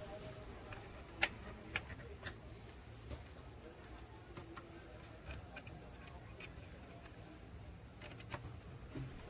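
Small metal clicks and taps, irregular and a few at a time, of a screwdriver working small screws into a clock frame to fix the pendulum bracket, over a faint low hum.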